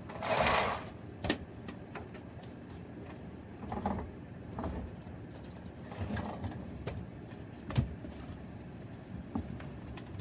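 Handling noises: a short rustling swish about half a second in, then scattered clicks and soft knocks. The vacuum is not yet running.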